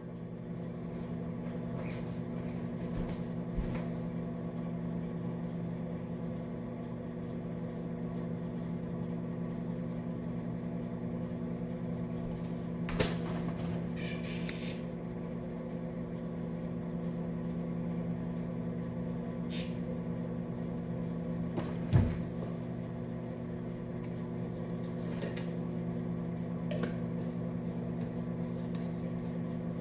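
Microwave oven running with a steady hum, heating the fudge mixture. Two sharp knocks stand out, about a third of the way in and again near three-quarters through.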